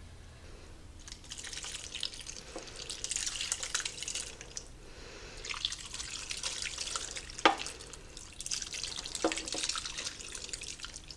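A thick tomato-and-brown-gravy liquid poured in stretches from a glass measuring cup onto vegetables in a slow cooker, splashing and dribbling. A sharp knock stands out about seven and a half seconds in, with a smaller one near the end.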